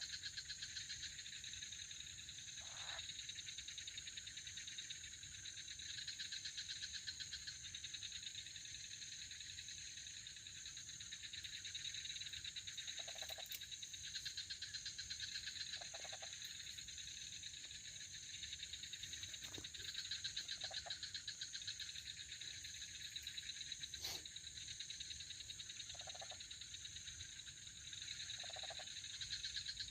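Night chorus of insects and frogs: a steady, fast-pulsing high trill throughout, with short, lower frog-like calls every few seconds.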